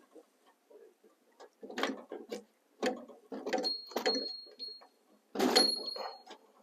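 Metal Husky toolbox drawer clanking and rattling as it is tugged and jiggled on its slides without releasing. Several knocks, two of which leave a short, high metallic ring.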